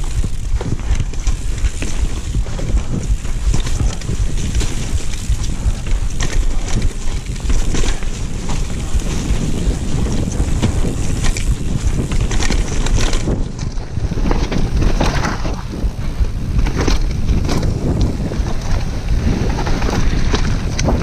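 Wind buffeting the microphone of a camera on a mountain bike riding down a dirt forest singletrack, with the tyres rolling over dirt, roots and rocks and the bike knocking and rattling over the bumps, more often in the second half.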